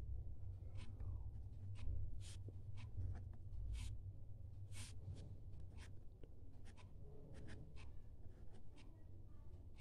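Handwriting: short, irregular scratching strokes of a pen on a writing surface as a calculation is worked out, over a low steady hum.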